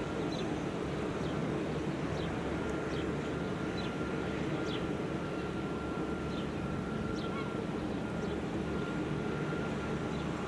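Steady low drone of a small fishing boat's engine as it approaches, under an even wash of sea noise, with short high bird chirps every second or so.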